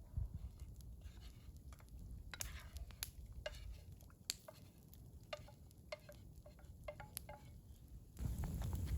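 A metal spoon clinking and scraping against metal camp cookware: a string of light taps, many with a short ring. Near the end a louder low rushing noise comes in suddenly.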